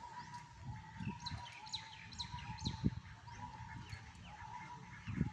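Bird chirping: four short calls falling in pitch, about two a second, over a faint steady tone, with a few low thumps, the loudest about three seconds in.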